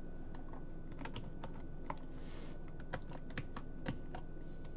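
Typing on a computer keyboard: a run of irregular key clicks.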